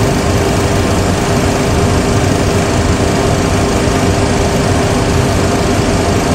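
Steady cockpit drone of a Boeing 737 Classic full flight simulator in the climb: simulated jet engine and airflow noise, with a constant hum running through it.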